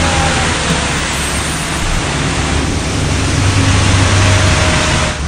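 Street sweeper truck running, a loud steady rushing noise over a low engine hum.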